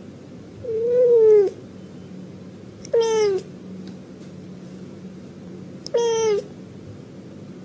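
Tabby cat meowing three times, about three seconds apart: a longer meow about a second in, then two short ones, each sliding down in pitch.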